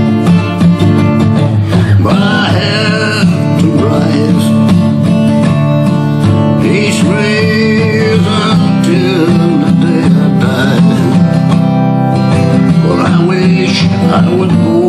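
Dreadnought acoustic guitar strummed steadily in D minor, with a man singing a slow country-blues line over it from about two seconds in.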